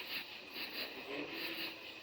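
Nighttime insect chorus chirping in even high-pitched pulses, about three a second. A faint short low tone comes in about a second in.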